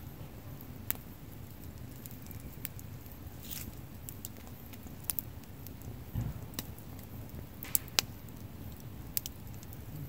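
Wood campfire burning: a steady low rush of flame with sharp crackles and pops from the logs at irregular intervals, the loudest two close together near the end.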